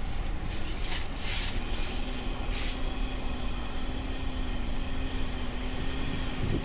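Wind blowing over the microphone with a steady low rumble, and short hissing gusts about half a second to a second and a half in and again near three seconds. A faint steady hum joins from about two seconds in.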